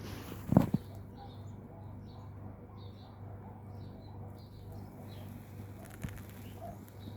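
A calandria (mockingbird) singing short, high notes that repeat about twice a second. A single thump about half a second in is louder than the song.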